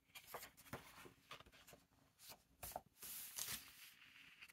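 Paper pages of a hardcover planner flipped by hand: several faint rustles and flicks, with a longer paper slide about three seconds in.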